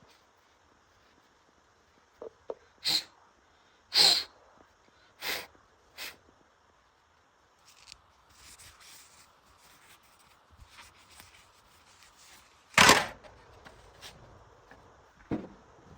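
A series of short, sharp noisy bursts and knocks, the loudest about four seconds in and again near the end, with faint rustling and scraping between them.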